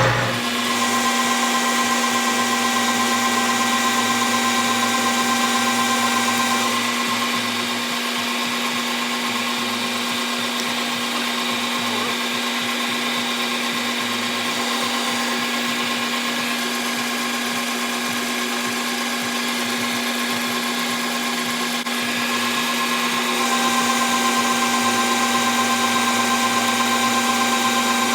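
Chinese-made metal lathe running steadily with a motor and gear whine while taking a 25-thousandths cut on a backhoe bucket pin. The sound dips a little about seven seconds in and comes back up near the end.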